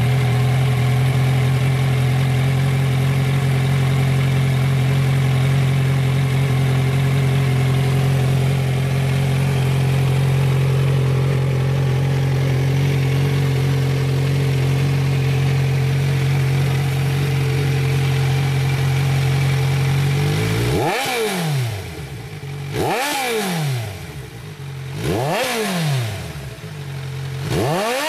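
Kawasaki Z1000 inline-four engine through Vance & Hines Urban Brawler twin slip-on mufflers, idling steadily just after starting, then blipped four times over the last several seconds, each rev rising and dropping quickly back toward idle.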